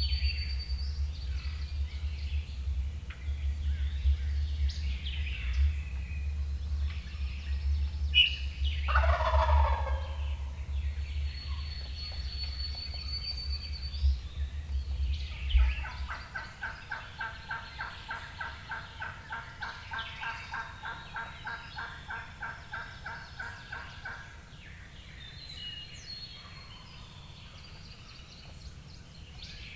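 A wild turkey gobbler gobbling once, a rattling call of about a second, about nine seconds in. Later comes a long run of evenly repeated calls, about three a second for some eight seconds, with songbirds chirping throughout and a low wind rumble that stops about halfway.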